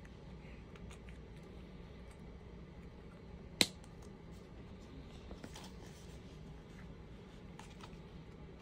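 Quiet handling of small plastic toy pieces, faint rustles and light clicks, with one sharp click about three and a half seconds in.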